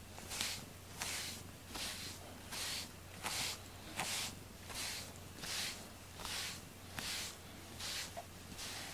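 A rubber-nubbed grooming glove brushing a cat's fur in steady repeated strokes, about one stroke every three-quarters of a second, each a short soft swish.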